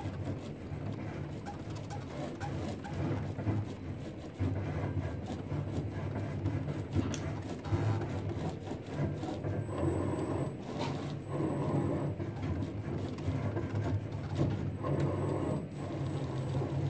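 CNC router's axis motors and ball-screw drives moving the pen carriage in short strokes as it draws. The sound is a steady low hum with a constant high whine, and mid-pitched motor tones that shift every second or so as the axes change speed and direction.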